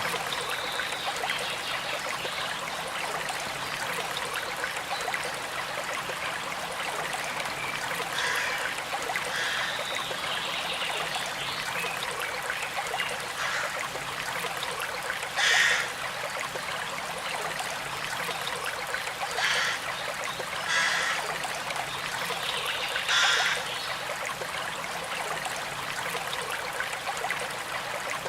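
River water flowing and trickling steadily, with a few brief louder bursts in the second half.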